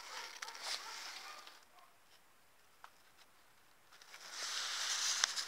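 Rustling, crinkling handling noise: a short stretch at the start and a louder one in the last second and a half, with a few sharp clicks.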